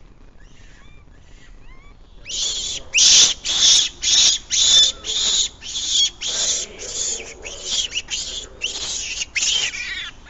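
A loud series of about fifteen short, harsh animal calls, roughly two a second, starting about two seconds in and going on until just before the end.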